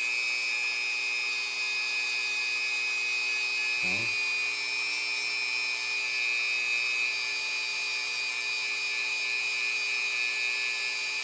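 Dremel rotary tool running at a turned-down speed, buffing a pitted chrome part with metal polish: a steady high whine.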